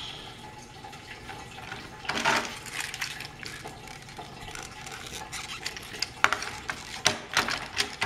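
Battery-powered Trackmaster motorized Spencer toy engine running along plastic track, its wheels clattering and clicking over the rails. Several sharper clicks come close together in the last two seconds as a hand takes hold of the engine.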